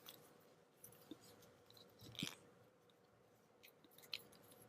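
Near silence with a few faint clicks and handling noises from Play-Doh being pressed into a plastic mold, the most distinct click about two seconds in.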